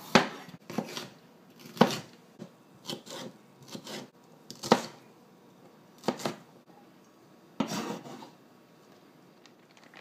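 Chef's knife dicing a red bell pepper on a plastic cutting board: single sharp knocks of the blade hitting the board, irregular, about one a second, stopping about eight seconds in.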